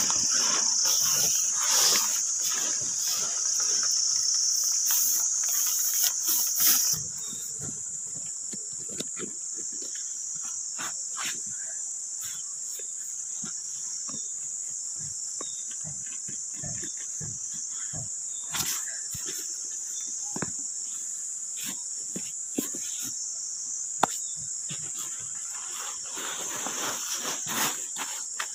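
Steady high-pitched chirring of insects in the grass, with scattered light clicks. For the first seven seconds or so it is louder and mixed with rustling.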